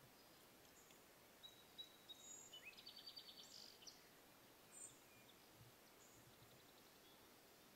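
Faint small songbird singing: a few high thin notes, a short upward sweep and a quick trill of repeated notes, all in the first half, over a quiet steady hiss.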